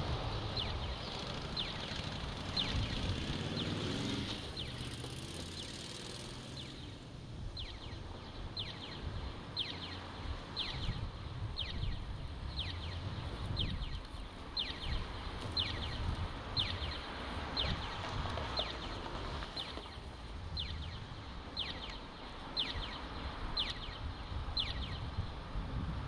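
Audible pedestrian crossing signal chirping, a short falling chirp about once a second with a brief pause about six seconds in, over the low rumble of street traffic and wind.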